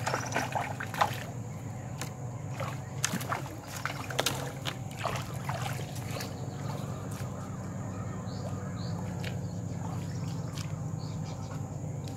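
Shallow river water sloshing and splashing at the bank as a man wades in and hauls in a hand line with a small palometa on it. Several sharp clicks come in the first few seconds, and a few short high chirps in the second half.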